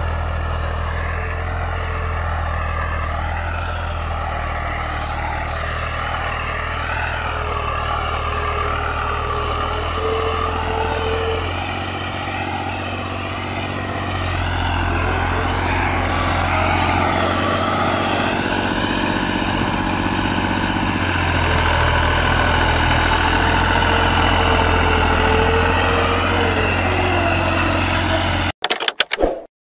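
Fiat 480 tractor's three-cylinder diesel engine running steadily under load while pulling a cultivator through the soil. The sound breaks off abruptly with a few clicks near the end.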